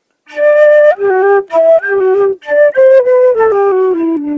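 Solo metal concert flute playing a short phrase of separate notes, starting about a third of a second in, with a run stepping down at the end to a held low note.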